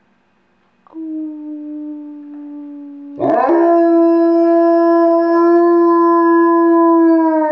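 Alaskan Noble Companion Dog howling on command: a softer held note begins about a second in, then a loud, full howl comes in about three seconds in and is held on one steady pitch.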